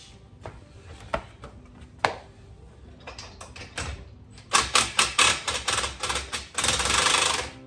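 Cordless impact driver running in the jockey wheel clamp bolts. A few single clicks come first. About halfway through come several short bursts of rapid hammering, then a longer burst near the end as the bolts are tightened up.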